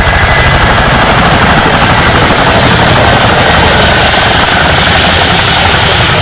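Helicopter running close by: a steady, loud, rapid chop of the rotor blades with a steady high whine over it.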